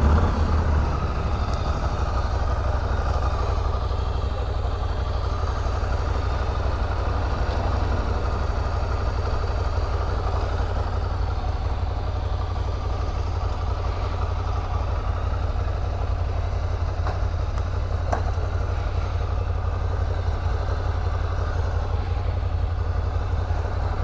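Ducati motorcycle engine running steadily, a deep, even sound with no revving.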